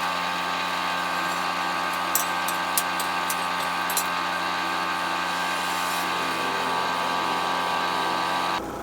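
A steady machine hum with many fixed tones, with a few light sharp clicks a couple of seconds in; the hum cuts off suddenly near the end.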